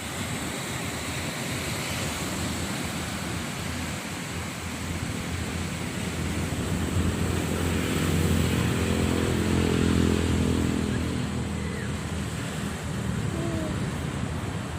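Steady wind rush on the microphone, with an engine's droning hum that swells from about five seconds in, is loudest a few seconds later, and fades again, like a vehicle passing.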